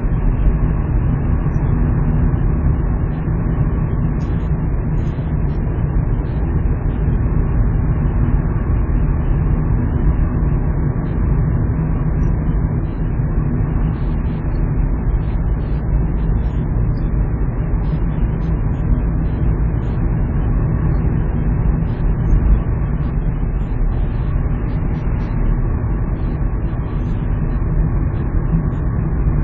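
A car driving at a steady speed, heard from inside the cabin: the engine and tyres make an even low rumble with no change in pace.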